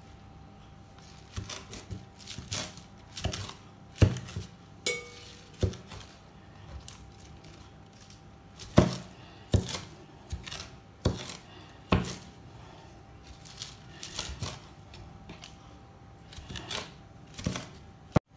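Kitchen knife chopping baby spinach on a wooden cutting board: irregular sharp knocks of the blade against the board, with a pause of a couple of seconds near the middle.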